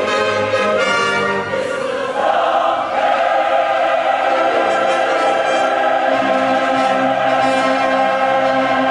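Large mixed choir with instrumental accompaniment singing: moving chords for about two seconds, then one long held chord that closes the piece.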